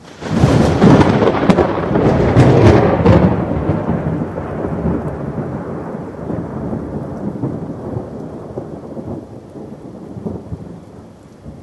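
A thunderclap starting suddenly, with sharp cracks in its first few seconds, then rolling and slowly fading, with rain falling throughout.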